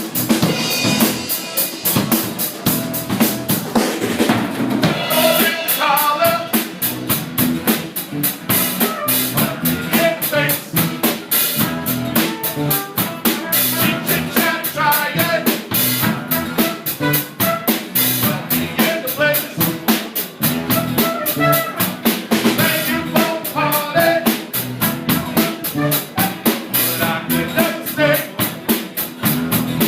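Live band playing an instrumental passage, with the drum kit to the fore: a steady rapid run of kick, snare and cymbal hits over bass and guitar.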